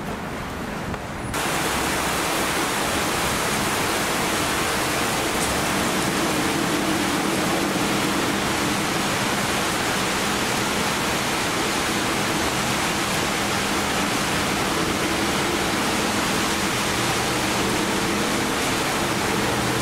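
Twin-engine widebody jet airliner on final approach, gear down: a steady, loud jet roar with faint humming engine tones, starting abruptly about a second in.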